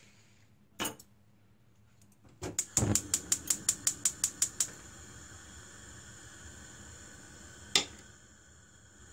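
Gas stove igniter clicking rapidly, about a dozen ticks in two seconds, then the burner lighting and hissing steadily. A single click comes before the run and one sharp knock comes later.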